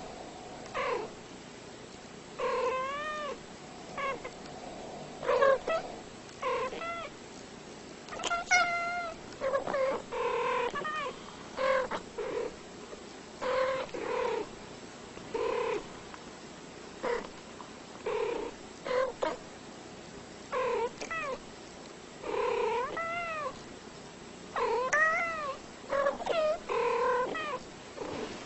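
A cat meowing over and over: short calls, many rising then falling in pitch, about one a second.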